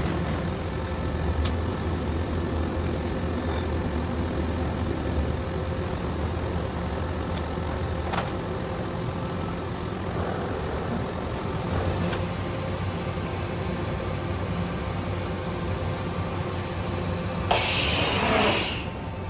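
Mazak horizontal machining center running with a steady machine hum, a few light clicks, and a loud burst of compressed-air hiss lasting about a second near the end.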